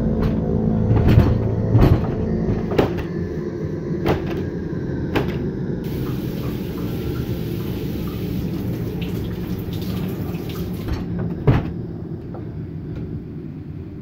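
Horror-film sound design: a low, dark drone, with a run of sharp knocks about a second apart at the start and one loud knock near the end. In the middle, for about five seconds, a steady hiss of a running shower is heard under the drone.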